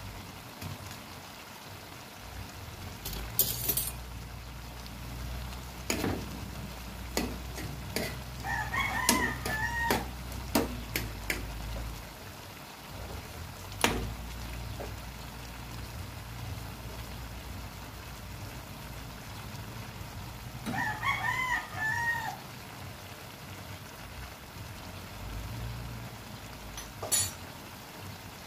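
A rooster crowing twice, about twelve seconds apart, over the low steady sound of a pan of squash cooking in coconut milk. A few sharp knocks and clicks come in between, the loudest about three and a half seconds in and near the middle.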